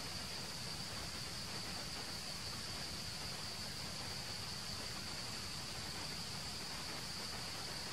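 Insects in the forest droning steadily with one unchanging high-pitched note, over a soft even hiss.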